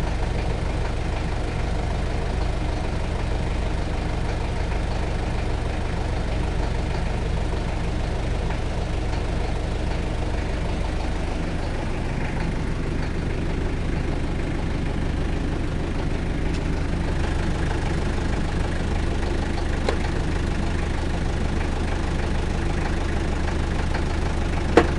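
Toyota 1KZ-T four-cylinder turbodiesel idling steadily, run to show an abnormal engine noise. A single sharp click comes near the end.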